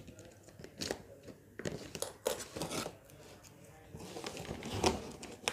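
Cardboard shipping box being handled and opened by hand: scattered short rustles, scrapes and crinkles of cardboard and packing tape.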